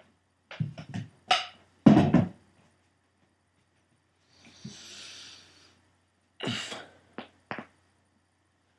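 A person's back and neck joints cracking during a self-adjustment: clusters of short pops and thuds, the loudest about two seconds in, with a soft hiss about halfway through and more pops near the end.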